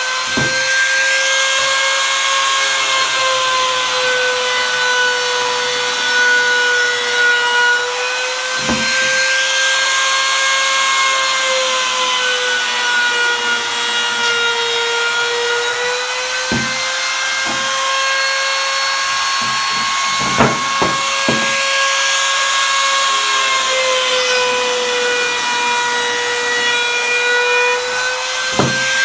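Handheld trim router running with a steady high whine, its pitch sagging and recovering slightly as the roman ogee bit cuts a profile along the edges of hardwood boards, with a cutting hiss over it. A few sharp clicks break through, a quick cluster of them about two-thirds of the way through.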